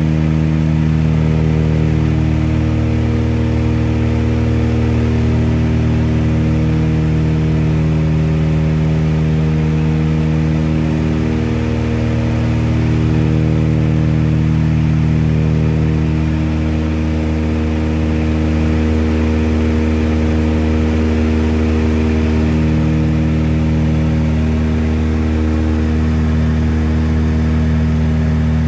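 Small propeller plane's engine drone heard from inside the cabin in level flight: a steady, loud hum with a slow rise and fall.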